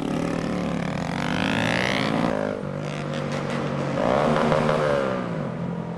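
Honda Grom single-cylinder motorcycle engine accelerating. The pitch climbs, drops at a gear change about two seconds in, then climbs again before easing off near the end.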